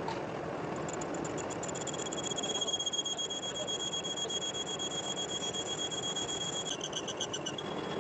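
Metal lathe running while a carbide-insert tool cuts the edge of a spinning steel gear blank. A steady high-pitched whine from the cut sets in about a second in and breaks into a rapid pulsing near the end.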